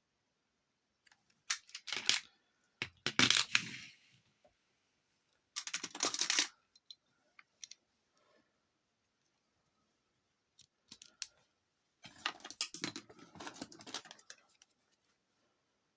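Small metal objects being handled: short bursts of clinking, clicking and scraping, about five clusters with quiet gaps between them.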